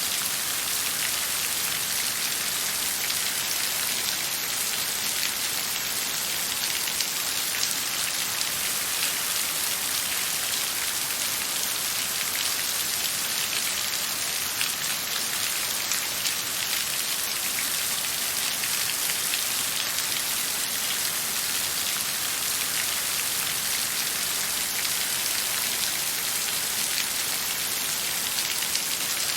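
Steady rain falling, an even hiss of many drops with fine pattering ticks and no thunder.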